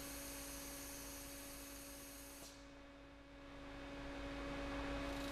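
Faint, steady hum: a low tone and a higher tone held level over a light hiss, which thins out briefly about halfway through. There is no tapping or machining rhythm.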